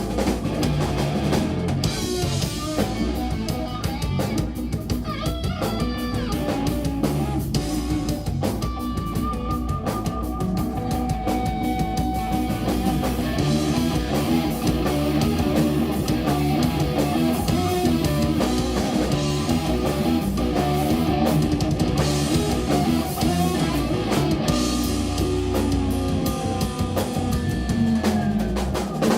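Live jazz-rock trio playing an instrumental: an electric guitar plays lead lines with bends over electric bass and a drum kit.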